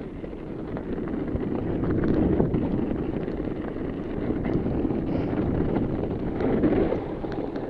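Fat bike riding fast along a mountain-bike trail: tyre rumble and wind buffeting the helmet-camera microphone, with scattered clicks and knocks from the bike over rough ground.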